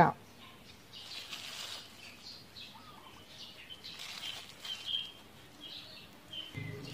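Faint crackling and rustling as a dried grilled fish is torn apart by plastic-gloved hands to pick out the flesh, with short bird chirps in the background. A low cooing, likely a dove, starts near the end.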